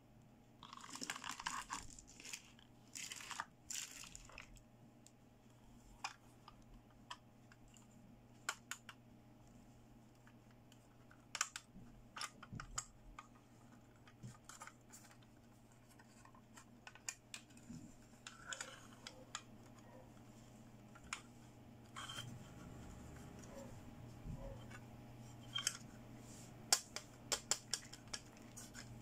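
Hands handling a plastic toy makeup compact: rustling and crinkling in the first few seconds, then scattered sharp plastic clicks and taps, with a quick run of clicks near the end as the compact is opened.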